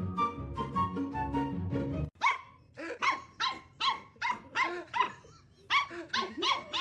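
Background music cuts off about two seconds in, followed by a dog barking in a quick run of a dozen or so short, sharp barks.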